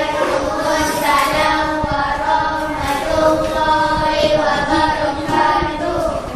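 A group of children singing together in unison, holding their notes.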